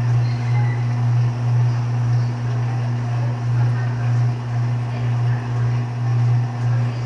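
Electrolux LTD13 13 kg washing machine running its second rinse on the heavy-soil programme: a steady low motor hum that swells and eases unevenly every half second or so.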